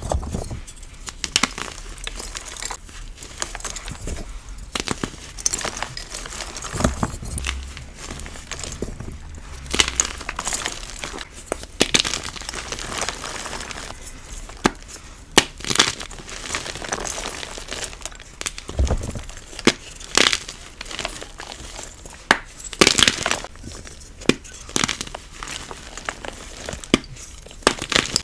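Dyed BSN gym chalk cubes (magnesium carbonate) being crushed and crumbled, a continuous run of irregular dry crunches and crackles, with a few sharper, louder snaps scattered through.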